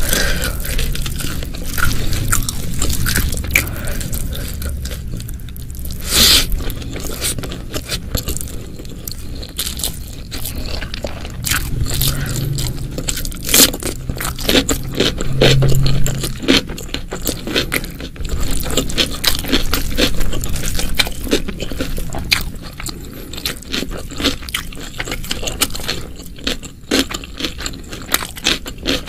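Close-miked eating: a person chewing and crunching food, with many sharp mouth clicks and smacks coming in quick, irregular runs.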